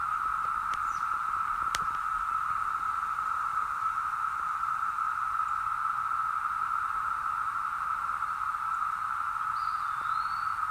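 A chorus of cicadas droning steadily: one continuous, even buzz with no breaks.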